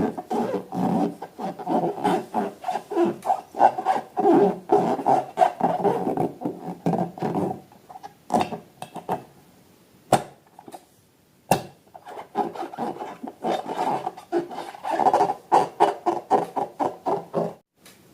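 Hands working slime and balloons, a fast run of rough rubbing, squishing crackles. It goes quieter about halfway through, with two sharp clicks, then resumes until just before the end.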